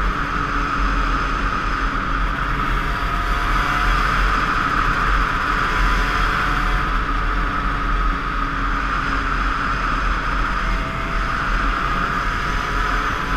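Small 50cc two-stroke motorcycle engine running at a steady cruising speed, its note shifting slightly a few times, mixed with steady wind rumble on a helmet-mounted camera.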